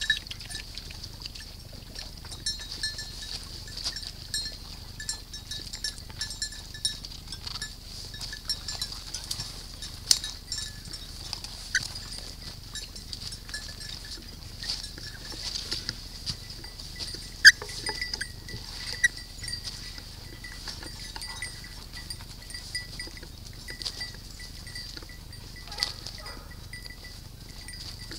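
Small bells jingling steadily, with footsteps through dry leaf litter and one sharp click about seventeen seconds in.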